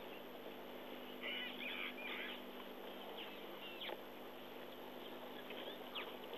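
Birds calling over a quiet natural background: a couple of short bursts of chirping and a few quick downward-sweeping notes.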